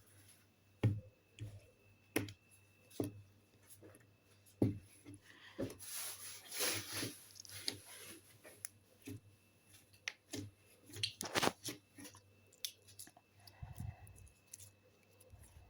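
Hands working a very runny, sticky slime: faint, irregular sticky clicks and soft squelches, with a longer stretch of squishing about six seconds in. The slime is so runny that it clings to the hand and gives little of the crisp clicking sound a firmer slime makes.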